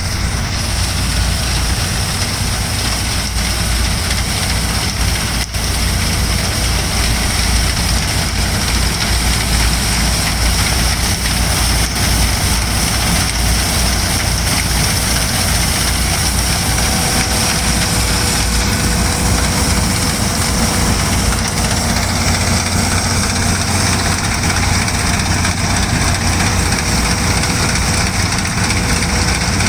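New Holland TC5.30 combine harvester running steadily: a continuous engine drone with a steady high whine over it.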